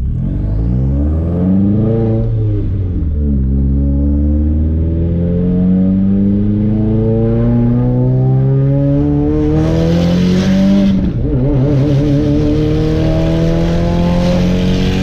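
Subaru flat-four engine revving hard under full-throttle acceleration, with upshifts about 3 seconds and about 11 seconds in and the revs climbing steadily after each. It pulls smoothly without cutting out, the misfire cured by new spark plugs.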